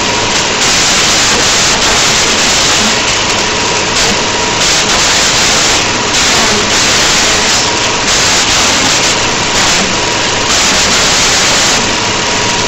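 Loud, steady static hiss, an even electronic noise with a faint steady tone underneath it.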